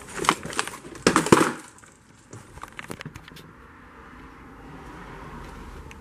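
Crinkling and rustling of a plastic candy bag being handled for about the first second and a half, then a few light clicks, then a low steady background.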